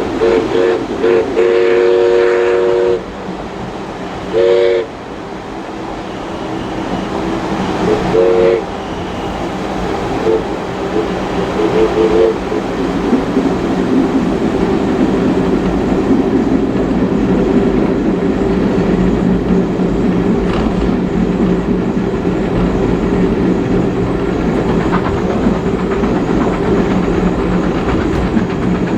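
The steam whistle of Baldwin-built steam locomotive 5917 sounds a chord in a series of blasts: a few short toots running into a longer blast at the start, single short blasts about four and eight seconds in, and fainter short toots around eleven seconds. Underneath, the carriage rumbles steadily with clickety-clack over the rails.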